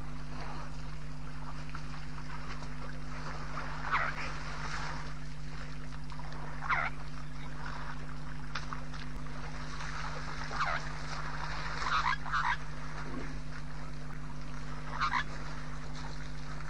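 Short animal calls repeated every couple of seconds, some in quick pairs, over a steady low electrical hum.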